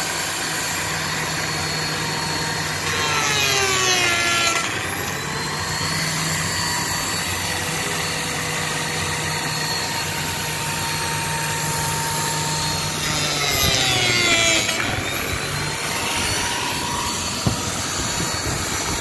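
Lamello Zeta P2 connector-slot cutter running with a steady whine, cutting twice into a melamine-faced particleboard panel for Clamex P-15 connectors. Its pitch falls under load about 3 s in and again about 13 s in, then recovers after each cut.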